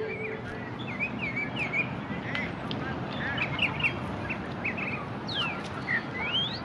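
Several birds chirping and calling in short, quick notes, with a couple of rising whistled calls near the end, over steady background noise.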